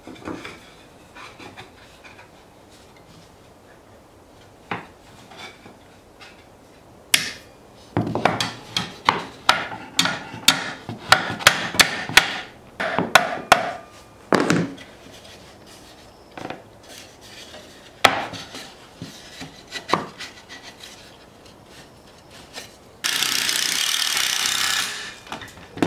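Wooden nightstand frame parts tapped into place with a small hammer: a quick run of sharp knocks, then a few single knocks. Near the end a cordless impact driver runs for about two and a half seconds, driving a screw into the frame.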